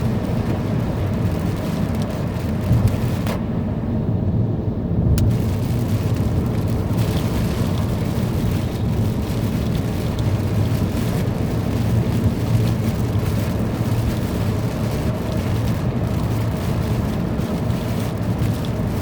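Steady noise of a heavy thunderstorm downpour with wind, mostly a low rumble with a hiss over it.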